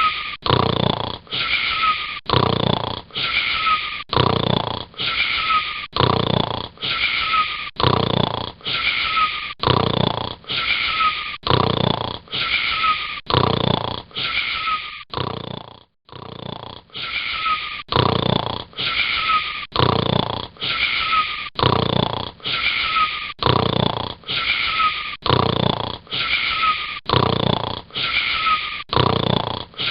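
Snoring in a quick, even rhythm: about three wheezy, whistling snores every two seconds, with a short break a little past halfway.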